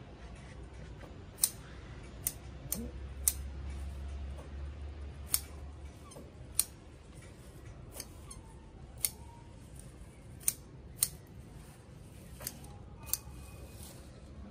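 Scissors snipping through water spinach stems at harvest: about a dozen sharp, crisp snips at irregular intervals, a second or so apart, over a faint low rumble.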